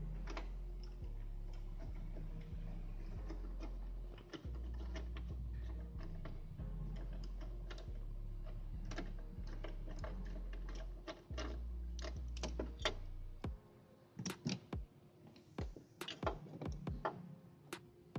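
Background music with a deep bass line that changes note every couple of seconds, with scattered sharp clicks over it. The bass stops about thirteen seconds in, leaving irregular clicks and taps of tools and bolts at the engine mount.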